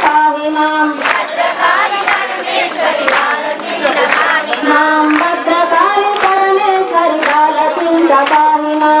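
A group of women singing a Navaratri devotional song together, keeping the beat with hand claps about once a second.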